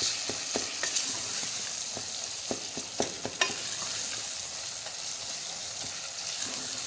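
Sliced onions frying in oil in a metal pot, with a steady sizzle. A spoon stirs through them, knocking and scraping against the pot several times in the first half, after which only the sizzle goes on.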